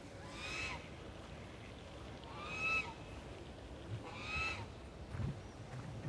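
Waterfowl calling: three pitched calls of about half a second each, spaced nearly two seconds apart, each rising and then dipping slightly in pitch.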